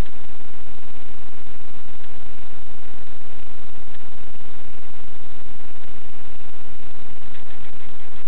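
Loud, steady static-like hiss with a faint buzz running through it; no distinct events.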